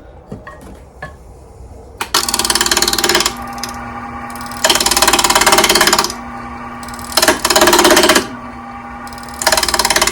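Shop Fox W1704 mini wood lathe running with a steady hum while a turning tool cuts into the spinning wood blank in four loud scraping passes, each a second or so long. A few light clicks come before the lathe is heard, about two seconds in.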